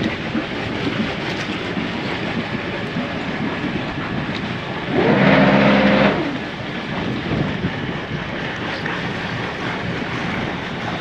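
The twin diesel engines of a Broom 41 motor yacht running at idle, with wind on the microphone. About five seconds in, a loud whirring burst of just over a second that starts and stops abruptly: the bow thruster pushing the bow off the berth.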